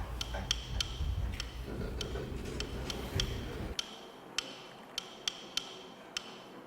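Steady clock-like ticking, about three sharp ticks a second, over a low rumble that cuts off suddenly a little over halfway through.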